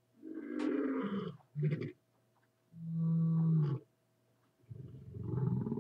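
Growling and roaring vocal sounds with no words. A few short growls come first, then a single steady held note about three seconds in, then a long rough, rattling roar that rises in pitch from about five seconds in.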